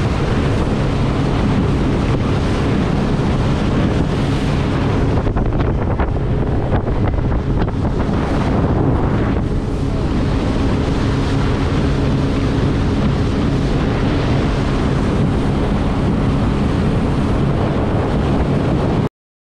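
Fishing boat under way: the engine drones steadily under water rushing past the hull, with heavy wind buffeting on the microphone. It cuts off abruptly just before the end.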